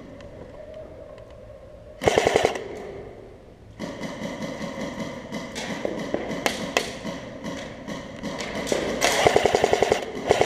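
Airsoft guns firing: a short rapid burst about two seconds in, scattered single shots, then a longer rapid burst near the end.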